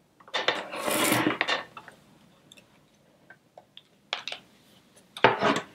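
A rotary paper trimmer's cutting head slides along its rail and cuts through laminated card, a scraping stroke of about a second and a half. Two short knocks of handling clatter follow near the end.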